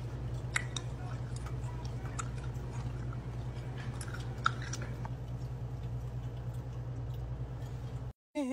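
Room tone: a steady low hum with a few faint, scattered clicks.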